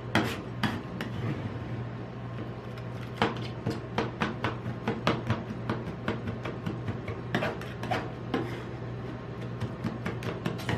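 Metal spatulas scraping and tapping ice cream on a rolled-ice-cream cold plate: irregular sharp strikes and scrapes in quick clusters, over a steady low hum.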